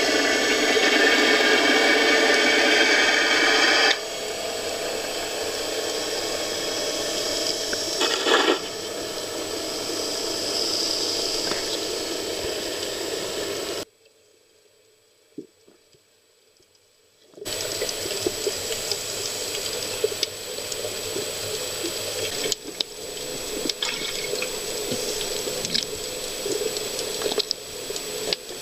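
Water noise recorded underwater by a diver's camera: a loud rush of bubbles for the first four seconds, then a steadier hiss. It drops out for a few seconds partway through and comes back with scattered clicks.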